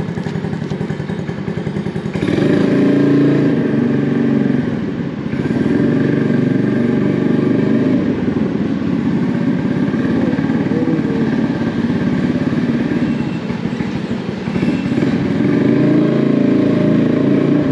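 Honda Navi scooter's small single-cylinder engine and exhaust running while riding. It swells with throttle about two seconds in, eases off briefly twice, and picks up again near the end.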